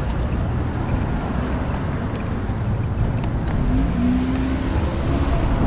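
Road traffic: a car passing over a steady low rumble, with a brief rising engine note about three and a half seconds in.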